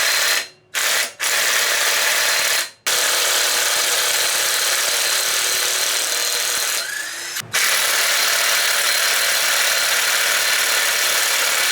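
A power tool running in long, steady stretches with an even, hiss-like whir, cutting out briefly about half a second in and again just under three seconds in, and dropping lower for a moment around seven seconds before picking back up.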